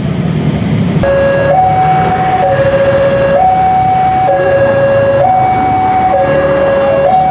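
Railway level-crossing warning alarm sounding a two-tone low-high electronic signal, each tone held just under a second, starting about a second in. It warns that a train is approaching and the crossing is closed. A low rumble runs underneath.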